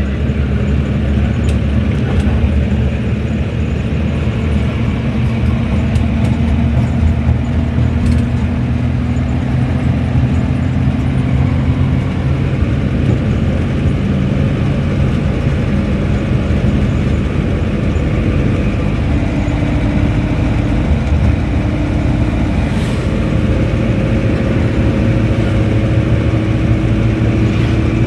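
Hindustan Ambassador car driving, its engine running steadily under a constant road rumble, heard from inside the cabin. In the second half the engine note climbs slowly.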